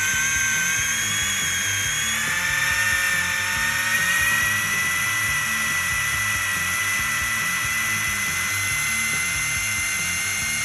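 Brushed electric motor of a Tamiya Blackfoot RC monster truck running steadily through its gearbox and drivetrain with a high whine, the pitch creeping up slightly over the first few seconds and then holding. It is running in freshly greased gears, with the speed control now giving throttle.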